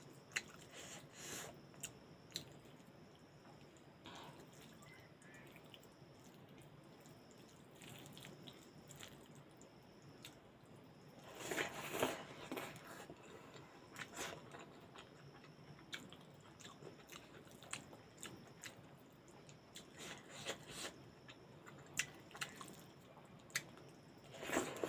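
Close-up mouth sounds of someone eating soft rice with cooked leafy greens and potato by hand: quiet chewing and wet lip smacks, with louder bursts of eating noise about twelve seconds in and again near the end.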